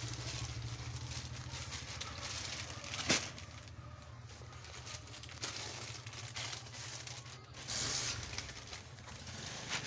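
Plastic packaging of boxed fabric packs rustling and crinkling as the packs are handled and moved, with one sharp tap about three seconds in and a louder rustle near the end, over a steady low hum.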